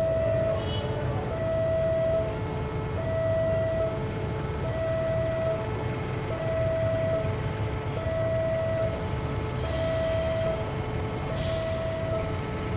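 A two-tone railway warning alarm sounding over and over, a higher and a lower tone alternating, each held just under a second, over the low rumble of a GE CM20EMP diesel locomotive hauling a freight train at slow speed. Two short high-pitched squeaks come near the end.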